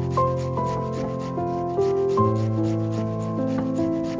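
Background music with sustained piano-like chords over a rhythmic rasping, about four strokes a second, of vegetables being grated on a hand grater.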